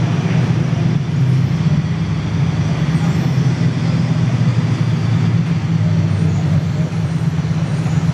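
A steady low engine drone over an even background hiss, holding level without rising or falling.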